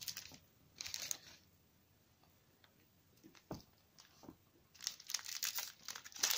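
Foil wrapper of a Pokémon card booster pack crinkling as it is handled and torn open by hand: two brief rustles, a single click a little past the middle, then steady crinkling and tearing from about five seconds in.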